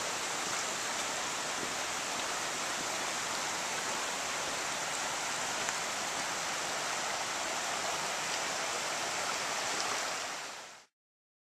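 Shallow creek water running over flat rock ledges, a steady rushing that fades out shortly before the end.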